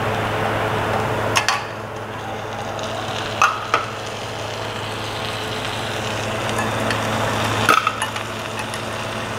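Stainless steel ladle clinking sharply against the steel pots a few times as cooked meat is scooped from a simmering pot and dropped onto rice, over a steady hiss and low hum.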